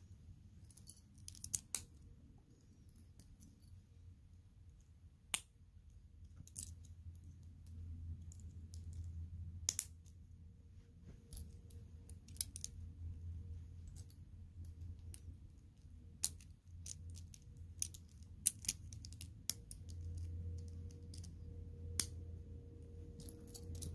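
Plastic Lego pieces clicking and snapping together as they are pressed on by hand: sharp, irregular clicks every second or two, over a steady low hum.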